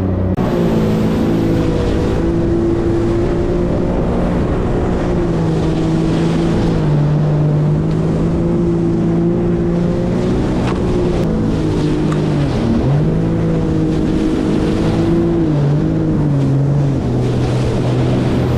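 Yamaha WaveRunner VX Deluxe personal watercraft running under way, its engine holding a steady note with water and wind rushing past. In the second half the engine note drops briefly a few times and climbs again as the throttle eases and opens.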